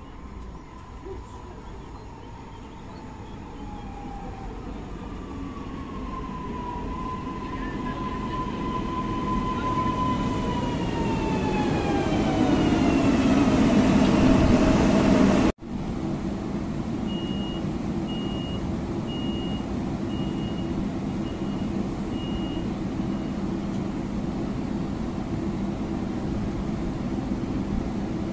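ED78 electric multiple unit pulling in, its traction motors whining in falling tones as it brakes and getting louder as it draws alongside. After a sudden cut, a short high door-warning beep repeats about eight times over the steady hum of the standing train.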